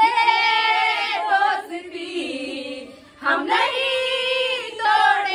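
A group of women's voices singing together without accompaniment, in two long drawn-out phrases with a short break between them.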